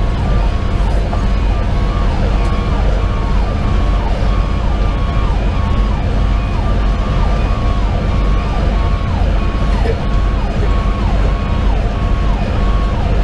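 Electronic siren sounding from inside the fire engine's cab: a repeating tone that holds high, then drops sharply, about one and a half times a second. Under it runs the steady low rumble of the truck's diesel engine and road noise.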